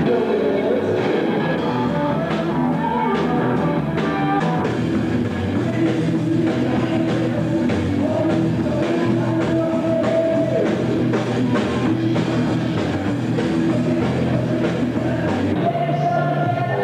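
Rock band performing: a singer over electric guitar and drums, steady and loud throughout.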